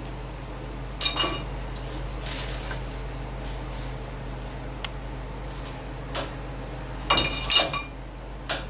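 Young crow's beak knocking against a hard dish or object, giving sharp ringing clinks: one about a second in, a quick cluster of several near the end, and a last one just after, over a steady low hum.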